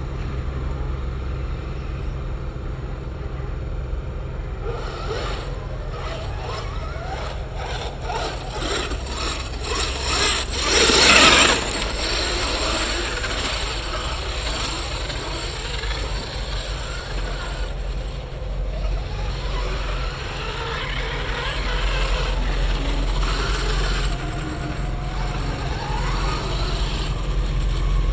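Electric RC truggy running on a dirt track. Its motor whines up and down in pitch as it accelerates and brakes, with one loud swelling pass-by about eleven seconds in, over a steady low rumble.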